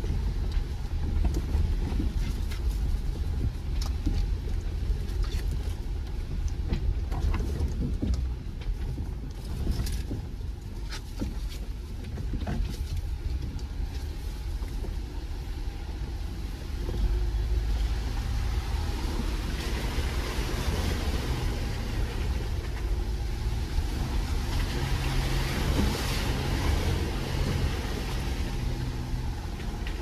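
A Jeep's engine runs as it crawls along a rough off-road trail, with scattered knocks and rattles in the first half. A little past halfway the engine pulls harder and water splashes and hisses as the Jeep drives through a puddle.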